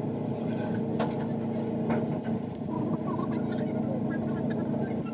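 A steady motor hum, with short high chirps and a few sharp clicks scattered over it.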